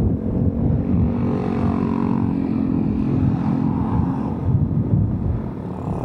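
Motorcycle riding at steady road speed: wind buffets the microphone in a constant low rumble, over which a motorcycle engine hums steadily, most clearly during the first few seconds.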